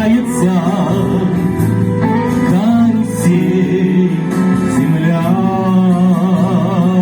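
Music: a song with singing over instrumental backing, the melody held in long wavering notes.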